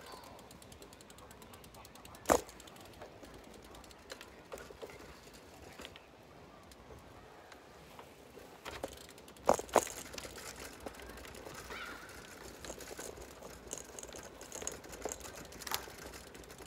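A few sharp knocks over a quiet outdoor background, one about two seconds in, two in quick succession near the middle and a lighter one near the end: handling bumps as the phone is turned and tilted.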